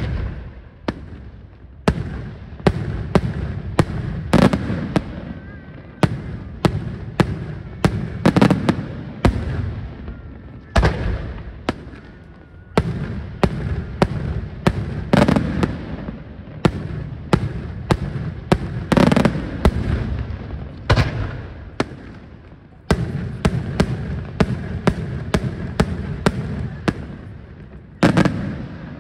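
Daytime aerial fireworks: a rapid, continuous barrage of sharp bangs from shells bursting overhead, with fresh volleys starting suddenly every several seconds.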